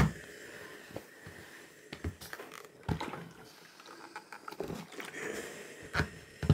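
Clothes iron pressing a sewn seam on cotton fabric: a few soft knocks as the iron is set down and picked up, with fabric sliding and rustling in between.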